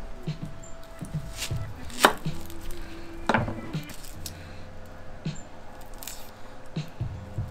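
Onions being peeled by hand with a kitchen knife: crisp snaps and knocks of the blade and dry papery skins, with scraps dropping into a stainless steel bowl. The loudest knock comes about two seconds in, another strong one about a second later, with lighter taps between.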